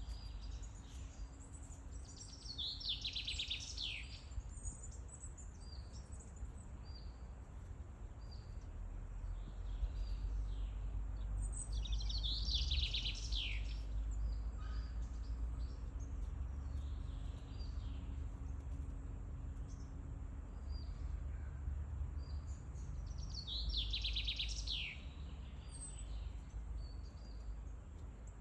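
Forest birdsong: a songbird sings the same falling, trilled phrase three times, about ten seconds apart, with short chirps in between, over a steady low rumble.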